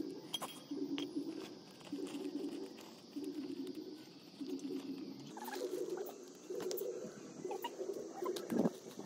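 An animal's low call, repeated steadily about once every second and a bit, over a steady high hiss, with scattered light clicks of handling and a louder knock near the end.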